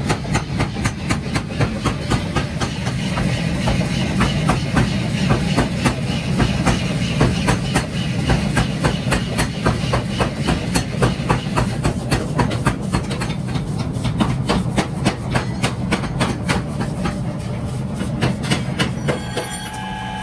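A forging power hammer pounding metal in a steady rhythm of sharp blows, about three a second, over a steady low machine hum. Near the end a steady whine sets in from an electric grinder motor.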